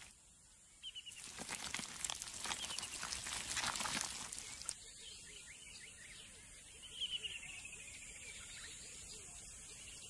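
Outdoor nature ambience: a crackling rustle for a few seconds, then birds calling with short falling whistles over a quiet background.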